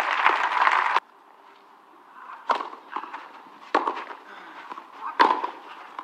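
Crowd applause that cuts off abruptly about a second in. Then come sharp cracks of a tennis ball hit by racket strings, one roughly every second and a half as a clay-court rally gets under way.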